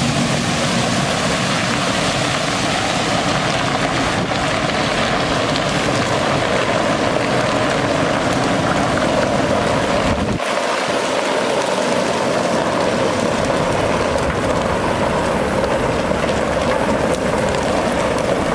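Diesel engine of a Kenworth T800 water truck running while water gushes from its rear spray heads and splashes onto gravel, a steady rushing hiss over the engine. The low rumble drops away about ten seconds in, leaving mostly the rush of water.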